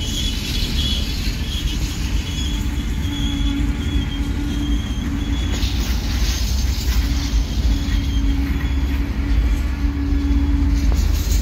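Container wagons of a long freight train rolling past close by: a steady rumble of steel wheels on the rails, with a thin squeal that comes and goes for a few seconds at a time.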